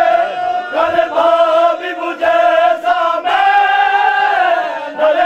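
A group of male mourners chanting a nauha, a Muharram lament, together in long held lines, with a few sharp slaps of matam (chest-beating) between phrases.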